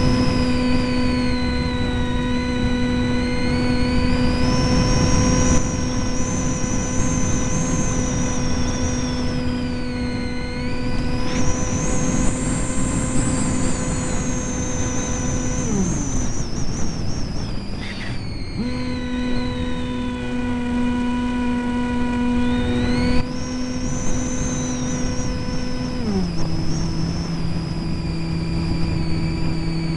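Brushless electric motor and propeller of an EasyStar RC model plane, heard from a camera on board: a steady droning hum over air rush, with a high whistle slowly rising and falling in pitch. About halfway through the motor is cut for two or three seconds and then throttled back up, and near the end it steps down to a lower, slower hum.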